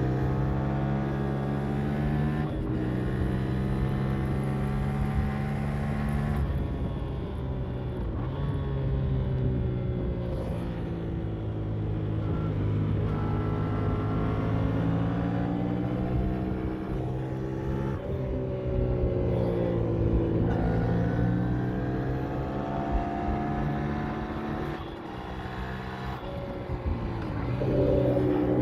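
Yamaha MT-07's 689 cc parallel-twin engine under way, its pitch climbing and dropping with the throttle, with several abrupt steps in pitch as the rider changes gear.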